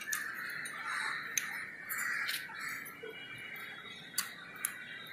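A few light, separate metal clicks and taps as a steel piston pin is slid through a motorcycle piston and connecting rod by hand, over a faint steady high-pitched background.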